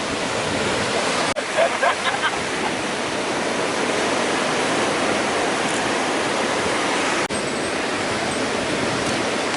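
Steady rushing of flowing water, even and unbroken, with two brief dropouts: one about a second in, one about seven seconds in.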